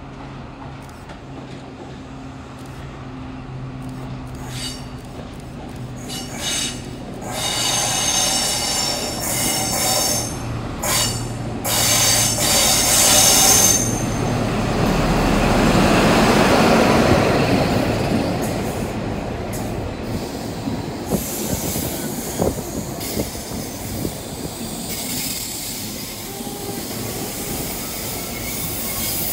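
Midland Pullman HST, led by a Class 43 diesel power car, running into the platform. A steady low engine hum gives way to high-pitched wheel squeal, then a loud rush as the power car draws level. As the coaches roll past, their wheels click over the rail joints.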